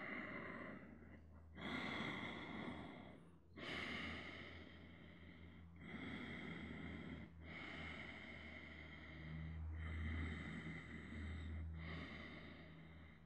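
A man's slow, audible breathing while holding a seated forward fold: about seven long breaths in and out, each lasting around two seconds with a short pause between.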